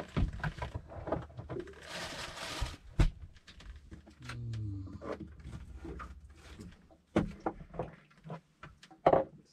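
Scattered knocks and clunks, with a short hiss about two seconds in and a sharp knock at about three seconds.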